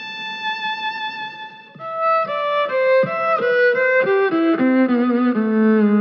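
Violin playing a melody: a long held high note, then from about two seconds in a run of short notes that step downward to a held low note.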